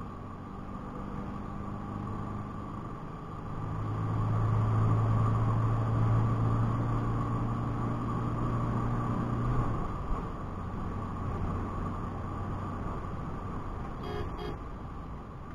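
Isuzu D-Max V-Cross's 3.0-litre four-cylinder turbo diesel heard from inside the cab, pulling in fifth gear at highway speed, with steady road and wind noise. The engine note swells about three to four seconds in and drops back after about ten seconds. A short double beep comes near the end.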